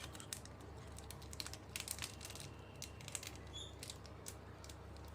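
Faint scattered clicks and light rustling of small plastic whisker pieces being handled and fitted by hand, over a low steady hum.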